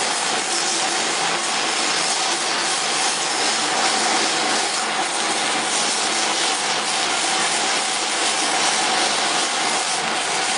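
CO2 laser cutting machine running while it drills rows of small holes in leather: a steady hiss with a faint steady tone beneath it.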